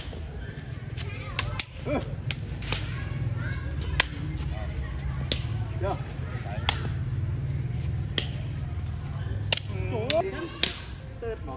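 Sharp, slapping kicks on a Khmer shuttlecock (sey) passed between players' feet, roughly one a second at an uneven pace, over a steady low rumble.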